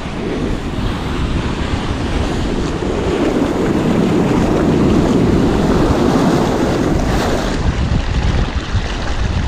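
Ocean surf breaking and washing up the beach, with wind buffeting the microphone; a wave swells up about midway and then fades.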